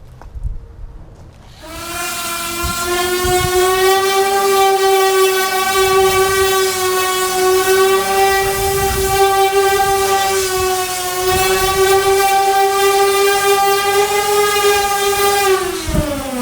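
Electric power sander fitted with 80-grit sandpaper, switched on about two seconds in and running with a steady high whine, then switched off near the end, its pitch falling as it spins down.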